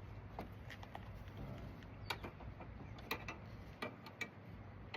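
A few faint, irregular clicks and taps, about half a dozen, over a steady low hum.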